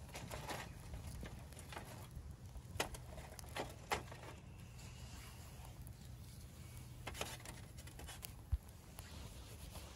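Small fire of dry twigs crackling in a folding sheet-metal fire stand, with a few sharp clicks and knocks as sticks are laid onto it, over a low steady rumble.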